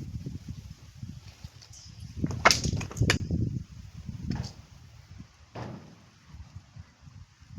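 Homemade wooden counterweight trebuchet being test-fired. A quick cluster of sharp clacks and a swish comes about two and a half seconds in, then two more single knocks, over wind rumbling on the microphone.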